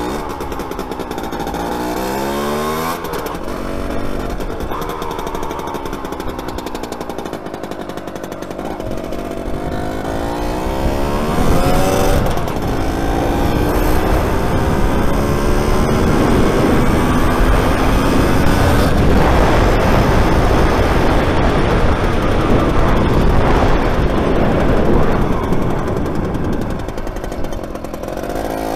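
Small two-stroke motorcycle engine, a Jawa Pionýr-type 50 cc, revving up through the gears while riding: its pitch climbs and drops back at each gear change, about three seconds in and again about twelve seconds in. Wind noise on the microphone grows louder and rougher in the second half as the speed rises.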